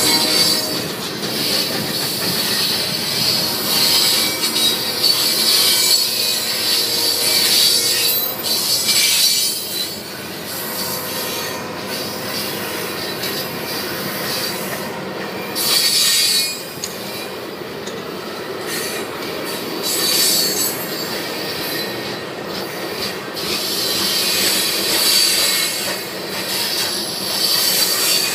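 Loaded ballast gondola cars of a freight train rolling past, their steel wheels squealing against the rails in a high, wavering screech that swells and fades every few seconds over a steady rumble.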